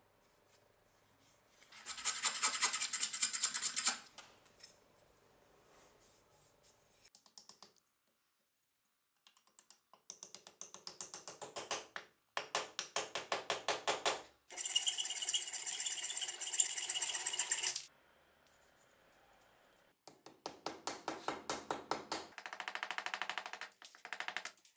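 A hammer driving a wooden wedge into the eye of a bearded axe head to lock the new handle, in quick runs of light blows about four or five a second, several bursts separated by short pauses.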